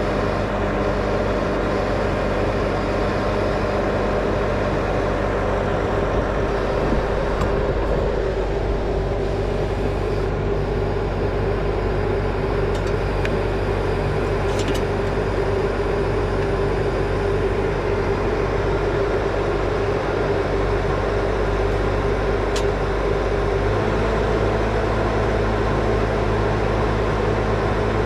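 Bobcat skid-steer loader's diesel engine running steadily under load while its hydraulic auger bores a post hole, with a slight shift in the engine note near the end.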